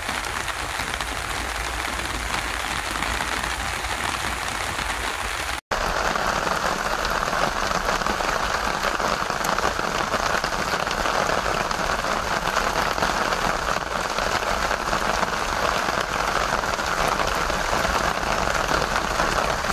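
Steady rain falling. After a cut about five and a half seconds in, it becomes slightly louder and brighter: raindrops splashing into rainwater pooled in an old metal wheelbarrow.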